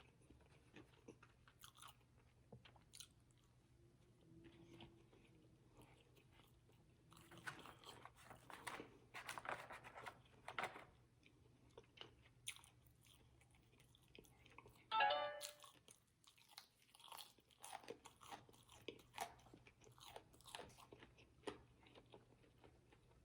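Close-up chewing and crunching of Raising Cane's fried chicken fingers: faint, irregular crackles and mouth clicks, busiest a few seconds in. About fifteen seconds in there is a brief, louder pitched sound.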